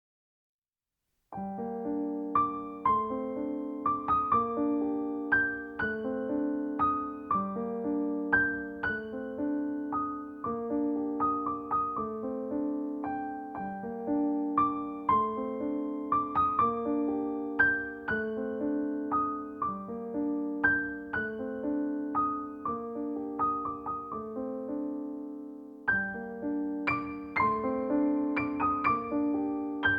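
Background piano music: a gentle, repeating pattern of notes, starting about a second and a half in, with a short break shortly before the end.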